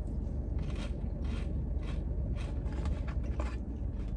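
Chewing a crispy breaded pickle fry: about half a dozen irregular crunches over a low steady hum.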